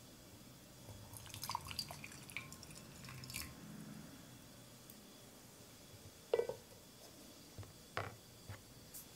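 Hot water poured from a bamboo ladle into a ceramic tea bowl, splashing and dripping for a couple of seconds. About three seconds later come two light knocks.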